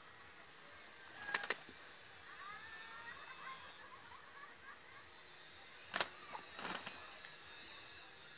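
Quiet outdoor ambience with a faint steady high hiss and a few brief chirps, broken by sharp clicks: two about a second and a half in and several more around six to seven seconds in.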